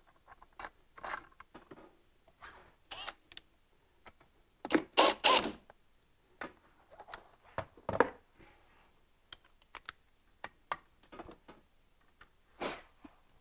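Scattered metal clicks, clinks and knocks as a snowmobile's secondary clutch is put back together by hand, the loudest cluster about five seconds in. Near the end a torque wrench is set on the clutch bolt to tighten it.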